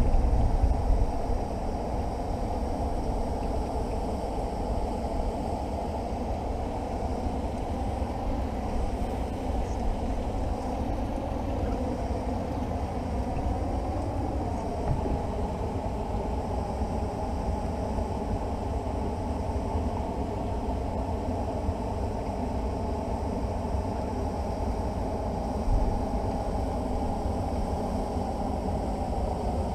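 A car driving: steady engine and road noise, with a brief change in engine pitch about halfway through.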